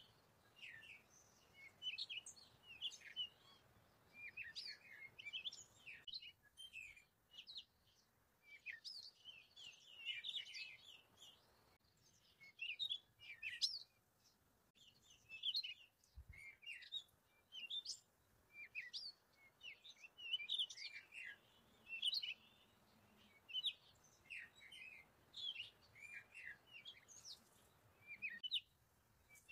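Small birds chirping faintly: short, high calls coming several a second in quick clusters.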